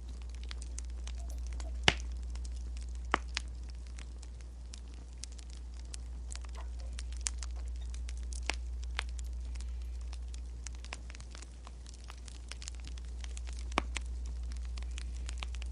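Wood fire crackling, with irregular sharp pops and snaps over a steady low rumble; the loudest pops come about two seconds in, again about three seconds in, and near the end.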